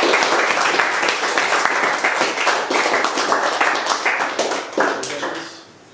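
Audience applauding, a dense patter of many hands clapping that thins out and dies away about five and a half seconds in.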